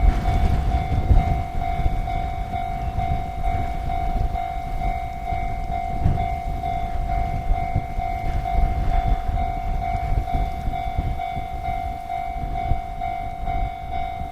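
Japanese railway level-crossing alarm ringing steadily at about two tones a second, over a loud, uneven low rumble of wind buffeting the microphone.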